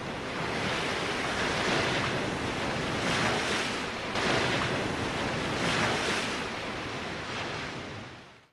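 Title-sequence sound effect: a rushing, surf-like noise that swells and ebbs several times, then fades out near the end.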